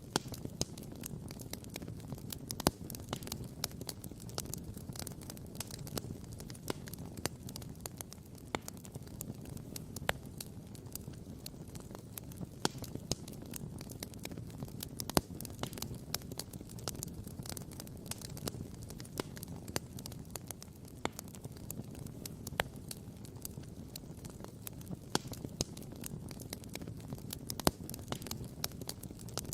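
Wood campfire crackling, with frequent sharp pops at irregular moments over a steady low rumble.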